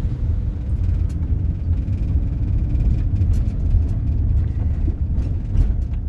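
Steady low rumble of a vehicle driving on a wet road, heard from inside the cabin, with a few light scattered ticks over it.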